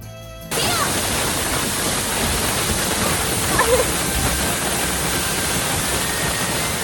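Kawarage Oyutaki hot-spring waterfall rushing, a loud, steady roar of falling water that cuts in suddenly about half a second in.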